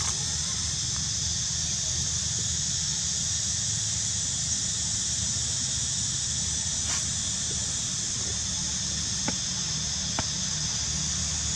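A steady high hiss over a low rumble, with a few faint clicks in the second half.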